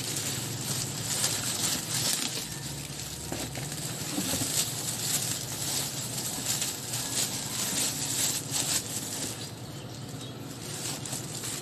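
Rustling and crinkling of packaging being handled, with many small crackles and light knocks.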